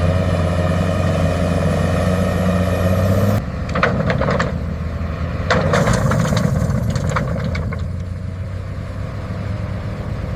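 Large haul truck's diesel engine running with a steady low drone. About three seconds in, the sound turns rougher and noisier, with scattered clanks and knocks.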